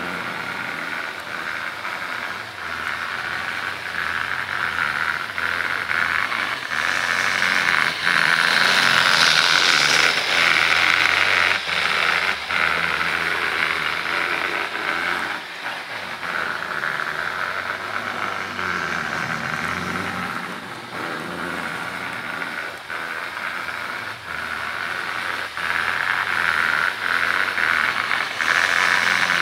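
Bachmann HO scale model diesel freight train running on its track: a steady whir from the locomotive motor and rolling wheels, with irregular clicks as the wheels cross rail joints. It gets louder as the train passes close about eight seconds in, quietens in the second half, and rises again near the end.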